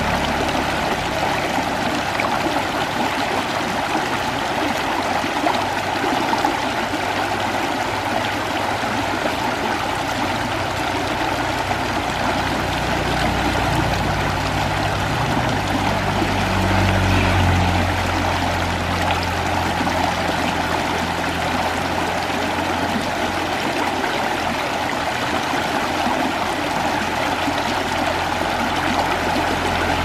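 Shallow stream rushing and splashing over rocks in small rapids, a steady, even flow of water.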